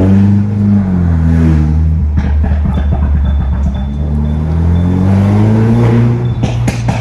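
Mercedes C200's 2.0-litre turbocharged four-cylinder revved and released twice, with exhaust crackles and pops as the revs fall. The crackles come from its Stage 2 tune. They are loudest in a quick cluster near the end.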